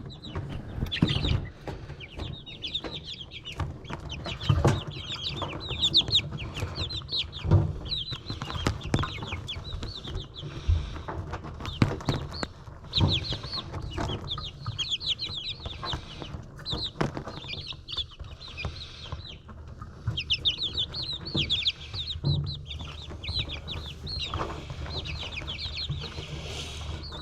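A brood of baby chicks peeping in a galvanized-trough brooder: many short, high, quickly falling cheeps overlapping without pause, with scattered sharp knocks among them.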